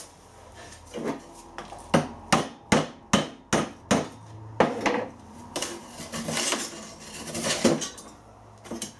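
A metal rod knocking and prising at the blocked ceramic honeycomb core of a cut-open diesel particulate filter: a quick run of about eight sharp knocks, then a few seconds of scraping.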